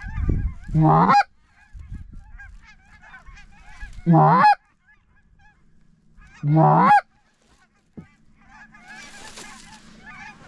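A flock of small geese yelping and cackling continuously in the air, while a hunter's goose call blows three loud honks that rise in pitch, about a second, four seconds and six and a half seconds in. A short rush of noise near the end.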